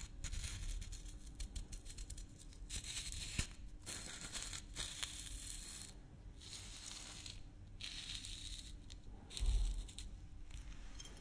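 Red plastic cap on a maple syrup bottle being twisted and rubbed by hand, making scratchy, crackly friction sounds in stretches of about a second with short pauses. A low thump about nine and a half seconds in is the loudest moment.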